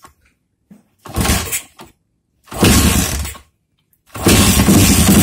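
Kick-starting a 145 cc Honda GL Pro four-stroke single trail bike: three kicks, each bringing a short rough burst of engine noise, the last the longest at about two seconds, but the engine does not keep running. It is cold and wet from a wash, and water has got into something.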